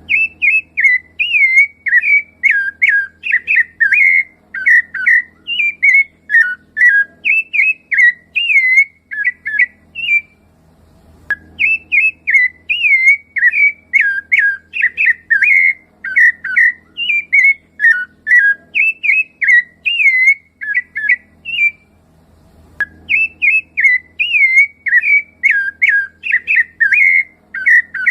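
Rufous-bellied thrush (sabiá-laranjeira) singing a long run of fluted, warbling whistled phrases that rise and fall in quick succession. The song breaks off briefly twice, about 10 and 22 seconds in, and then resumes.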